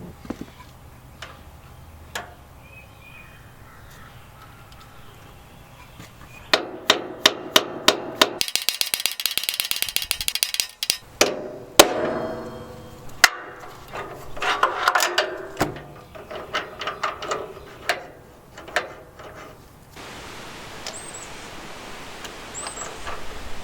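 Hand-tool work on metal: a ratchet wrench clicking, first in spaced clicks and then in a fast continuous run, followed by scattered metal knocks and clinks. Faint bird chirps come at the start and near the end.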